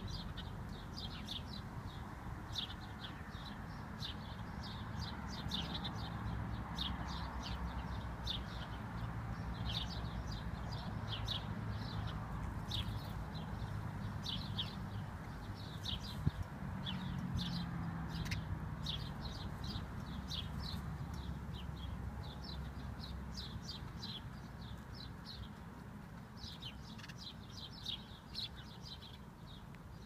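House sparrows chirping, many short repeated chirps coming in quick runs throughout, over a low steady rumble.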